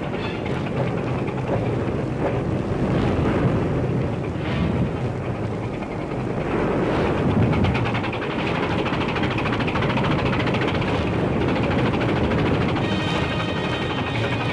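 Motor lifeboat's engine running with a steady low rumble under a continuous rushing noise.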